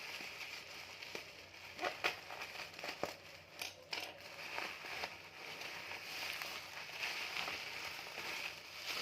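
Parcel packaging being handled: a continuous crinkling rustle, with a few sharper crackles about two to five seconds in.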